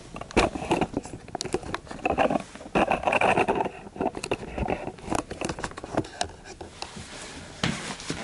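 Irregular sharp clicks and knocks mixed with rustling, heaviest a couple of seconds in.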